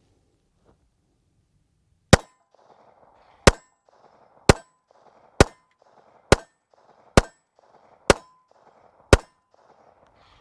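Luger pistol firing eight shots at a steady pace of about one a second, the first coming about two seconds in.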